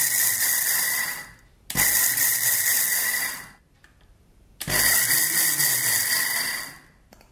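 Electric mixer grinder run in three short pulses at its lowest speed, each about two seconds long with a steady whine, then switched off and winding down. It is grinding soaked whole wheat to rub the husks off the grains.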